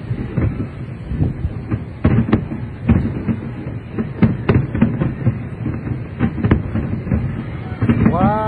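Fireworks barrage: aerial shells bursting in a rapid, irregular run of booms over a continuous rumbling crackle. Near the end there is a brief rising-then-falling tone.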